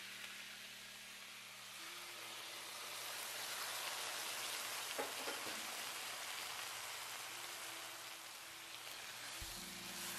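Onion and bell pepper pieces sizzling steadily in hot oil in a wok on high heat as they stir-fry, with a couple of light spatula taps about halfway.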